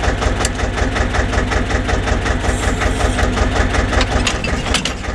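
Kramer tractor's diesel engine idling with a steady, even beat. A few sharp metallic clicks and clanks come through near the end as the rear-mounted plough is swung on its hitch.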